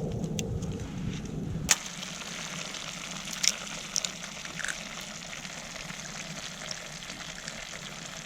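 Sizzling and crackling over a wood campfire, with a few sharp pops. A low rumble underneath in the first couple of seconds stops abruptly.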